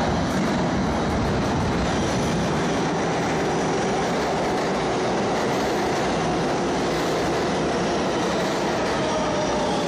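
New York City subway train running past the platform in an underground station: a loud, steady rush and rumble of steel wheels on rail, with a faint high tone coming in near the end.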